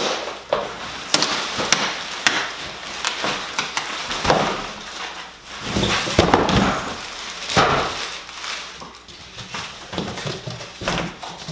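A large cardboard box and its foam packing being handled: cardboard scraping, flexing and rustling, with repeated irregular knocks.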